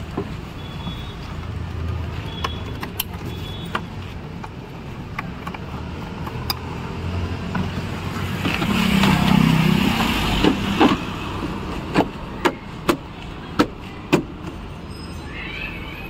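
Plastic trim clips on a Maruti Suzuki Wagon R front door panel snapping home as the panel is pressed back onto the door: a series of sharp separate clicks, loudest and most frequent in the last third. Around the middle comes a couple of seconds of louder rubbing noise with a low hum as the panel is worked into place.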